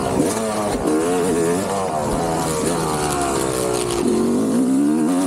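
Motocross dirt bike engines revving, the pitch climbing and dropping repeatedly with the throttle.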